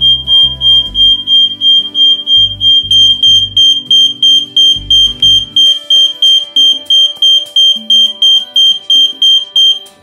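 Aico EI3024 multi-sensor fire alarm sounding in test through its interconnect: a loud, high-pitched beeping at about four beeps a second that cuts off suddenly near the end. It shows that the interconnect between the alarms is working, with the alarm triggered from the other unit's test button.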